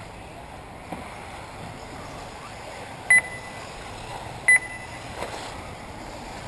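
Two short, loud electronic beeps about a second and a half apart, each a single high tone, over a steady background hiss: typical of an RC race lap-timing system registering cars crossing the timing line.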